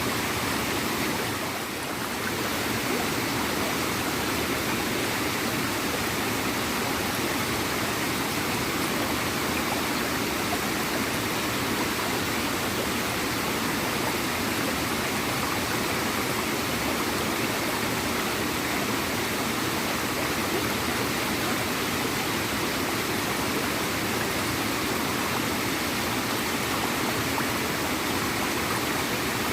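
Small waterfall running steadily: a constant rush of falling and flowing water with a gurgling texture.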